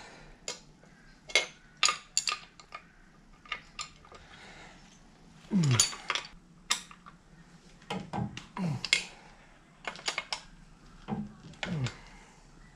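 Metal spanner clicking and clinking on the steel bolts of an outboard motor's lower unit as they are loosened, a string of sharp irregular clicks. Three short sounds slide down in pitch, about six, eight and a half and twelve seconds in.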